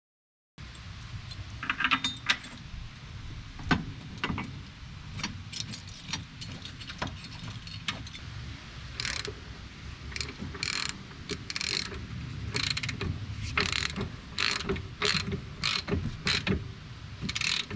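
Irregular mechanical clicking and clacking of metal parts over a steady low rumble, with the clicks coming thicker in the second half.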